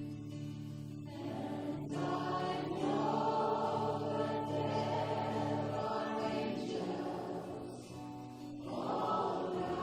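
Congregation and worship band singing a slow worship song together, voices holding long notes over a steady sustained bass.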